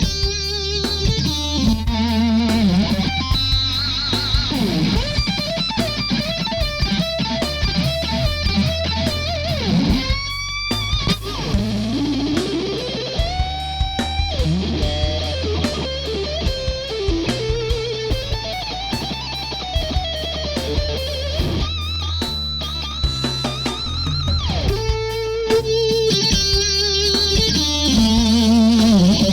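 Electric guitar played through the Brainworx bx_rockergain 100 amp-emulation plugin, an Orange Rockerverb model, with the tone of its Les Paul presets. It plays lead lines with vibrato on held notes and several rising slides. A low bass line and repeated drum-like hits run underneath.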